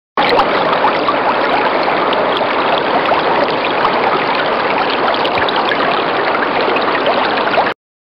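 River or stream water flowing: a steady rush with many small splashes and gurgles. It starts abruptly just after the beginning and cuts off abruptly shortly before the end.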